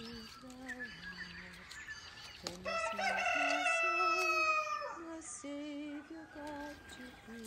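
A rooster crows once, a long call of about two seconds that starts about three seconds in and slowly falls in pitch at the end. Around it a person hums a slow tune quietly in held notes.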